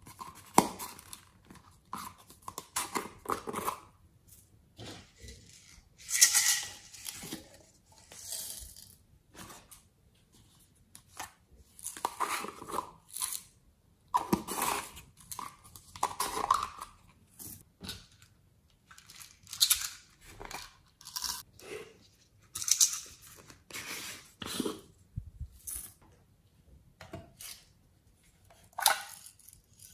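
Small plastic novelty slime containers being handled and opened: irregular plastic clicks, pops and scraping as the lids are twisted and pulled off.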